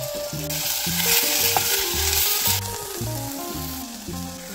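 Chopped green onion sizzling as it fries in oil in a stainless steel pot, stirred with a wooden spoon, over light background music. The sizzle is loudest from about half a second in and dies down after about two and a half seconds.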